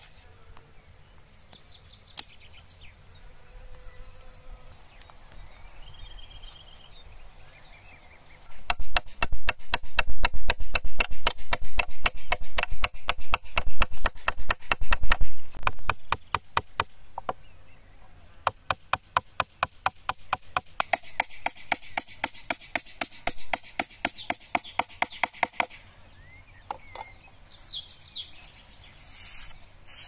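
Claw hammer driving nails into the light wooden boards of a small stool frame: a run of rapid, loud blows, then after a short pause a second run of lighter, evenly spaced taps.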